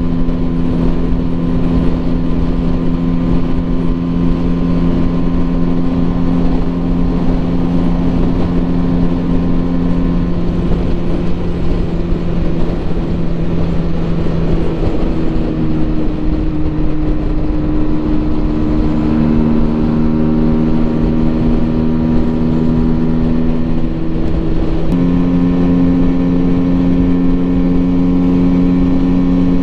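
Keeway V Cruise 125's small V-twin engine running at steady motorway cruising speed during a run-in. The engine note shifts pitch a few times with the throttle and steps up near the end, over a steady rush of wind.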